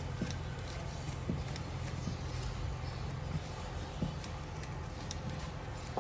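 Car jack being worked under a small car to lift it for a wheel change: a few light clicks and knocks about a second apart over a steady low rumble.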